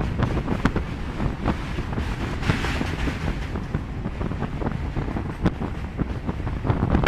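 Passenger train running across a steel truss rail bridge, heard from the open coach doorway: a steady rumble with frequent short clacks from the wheels on the rails, and wind buffeting the microphone.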